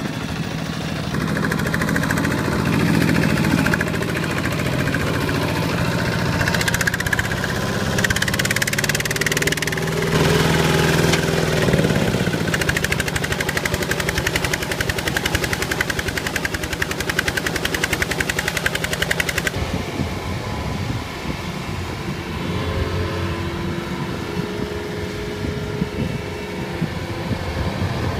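Two-wheel walking tractor's single-cylinder diesel engine running under load as it drives through deep mud, with a fast, even firing beat. About twenty seconds in it gives way to a different, lower and rougher engine sound.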